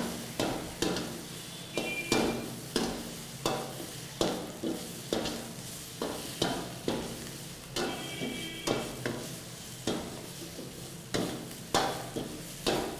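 Spatula scraping and knocking around a wok in quick stir-fry strokes, about two a second, as fried chicken pieces are tossed in sauce over a light steady sizzle. Twice the metal gives a brief high ring.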